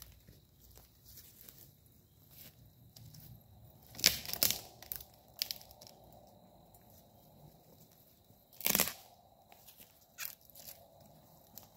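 Dry twigs crunching and snapping, with two loud snaps about four and nine seconds in and small crackles and rustles between.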